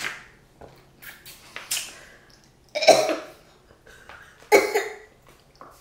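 A person coughing and clearing her throat, with two loud coughs about three and four and a half seconds in and softer ones before.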